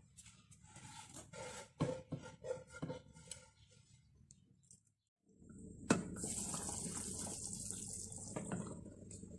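Hands rubbing and tossing steamed couscous grains in a clay dish: soft, scattered rustling with light taps. After a sudden break about five seconds in, a sharp metallic clink, then a steady hiss of broth boiling and steaming in a couscoussier pot.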